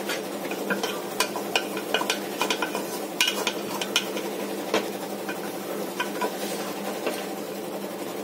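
Black spatula stirring chicken pieces in an aluminium pot, with irregular scrapes and clinks against the metal, over a steady low sizzle of the masala frying.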